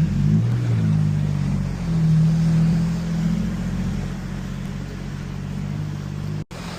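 Vehicle engine running hard under load during a sand recovery, its pitch rising and shifting in the first second or two, then holding steady.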